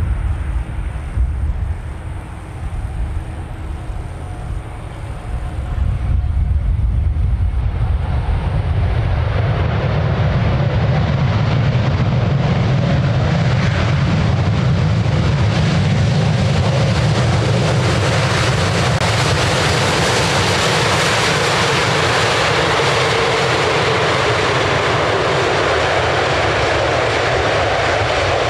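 Jet noise from a four-engine Airbus A380 (Rolls-Royce Trent 900s) landing and rolling out on the runway. A lower rumble swells about six seconds in into a loud, steady rushing roar that holds as the aircraft slows.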